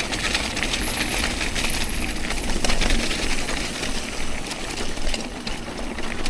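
Mountain bike rolling over a rough dirt trail: tyres on the ground, with the bike rattling in many small clicks and wind rumbling on the microphone.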